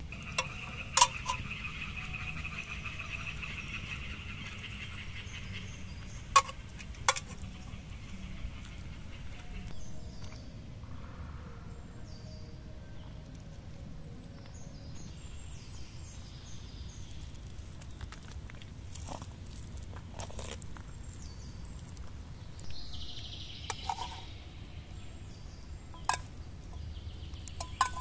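Outdoor ambience with faint bird chirps and a steady buzzing chirr during the first few seconds. A handful of sharp metallic clinks, a metal spatula knocking against the steel cooking pan, stand out as the loudest sounds.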